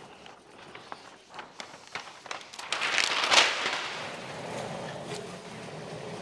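Paint protection film crackling and rustling as it is rolled off onto a wet bumper, with scattered clicks that build to a louder crackle about three seconds in, then a softer rustle.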